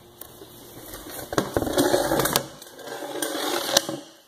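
Rough plastic scraping in two stretches of about a second each, with a few sharp clicks: a large PVC pipe with its fitted coupler being handled and stood upright.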